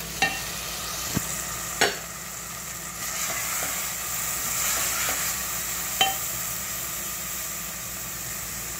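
Boiled urad dal tipped into a hot aluminium pot of fried tomato masala and stirred with a wooden spoon: a steady sizzle, a little louder from about three seconds in, broken by three sharp knocks of the spoon against the plate and pot.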